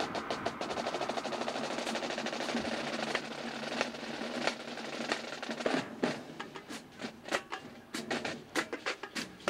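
Marching drumline of snare drums playing: fast even strokes at first, a dense roll about a second in, then loud separate accented hits through the second half.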